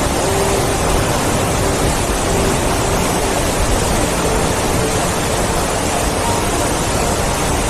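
Waterfall: a steady, loud rush of falling water, with no change in level.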